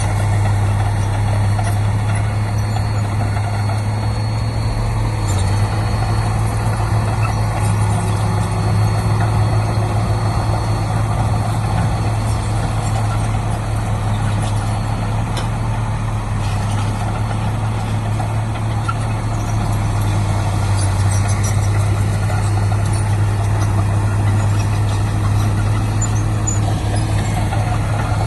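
Heavy diesel engine of earthmoving machinery running steadily, a constant low hum with little change in speed.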